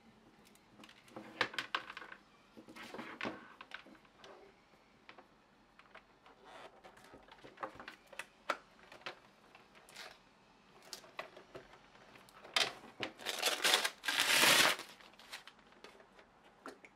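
Unboxing handling noise: scattered light clicks and rustles as a coiled power cord and a plastic-wrapped video projector are handled. Well past halfway, the clear plastic bag crinkles loudly for about two seconds as the projector is taken out of it.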